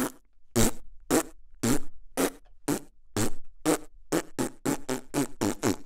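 Comic fart sound effects, one short blast about every half second, speeding up to a rapid run from about four seconds in.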